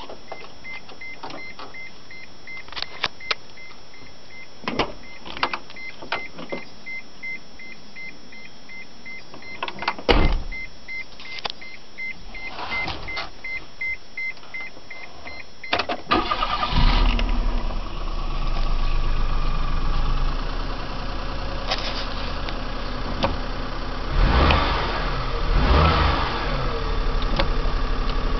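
A car's warning chime beeping steadily about twice a second, among clicks and a loud thump about ten seconds in. The beeping stops about sixteen seconds in as the Daihatsu Mira's small kei-car engine cranks, starts and settles to idle.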